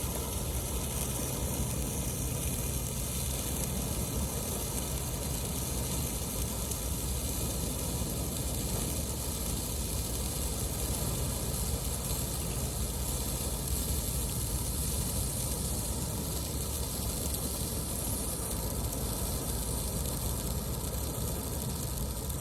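Handheld colour-wand firework burning with a steady hissing rush.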